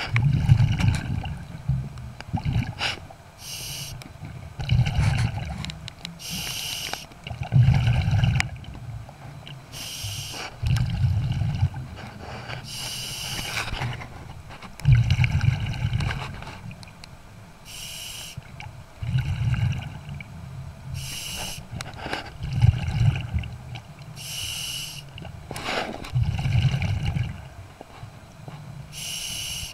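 Scuba diver breathing through a regulator underwater: a short hiss on each inhalation, then a longer low rumble of exhaled bubbles, in a steady cycle of about one breath every three to four seconds.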